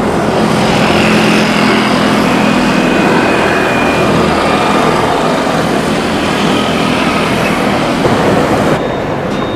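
Bombardier CRJ1000's twin rear-mounted turbofan engines at takeoff thrust as the jet lifts off and climbs away: a loud, steady rush with a high whine. The high part drops out suddenly near the end.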